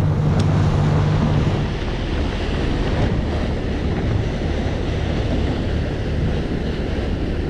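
Wind buffeting the microphone over the rush of water against a boat, with a boat engine humming low underneath. The engine's hum shifts lower about a second and a half in.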